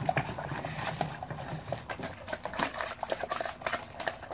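Wooden spoon stirring a watery, crumb-filled mixture in a bowl: quick, irregular sloshing and clicking of the spoon against the bowl.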